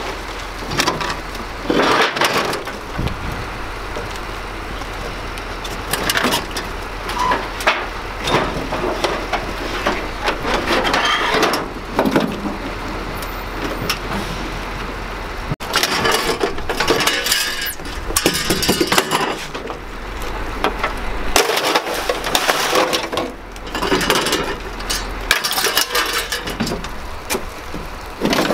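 Scrap metal clattering and banging as pieces are pulled off a pickup bed and thrown onto a scrap pile, in irregular bursts of knocks and clanks over a steady low rumble.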